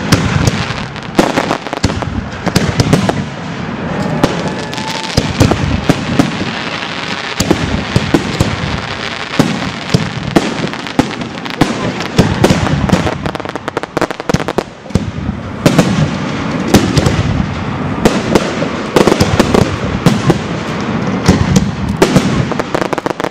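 Aerial fireworks going off: many sharp bangs of bursting shells in quick succession, with crackling between them.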